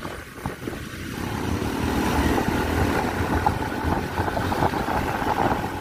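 Motorcycle engine running on the move, with road noise, growing louder about a second in and then holding steady.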